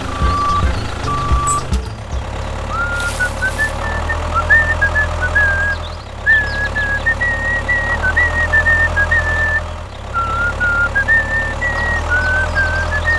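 Tractor engine running with a steady low pulsing rumble. Two short beeps come in the first second and a half, then a high tune of short stepped notes wavers over the engine.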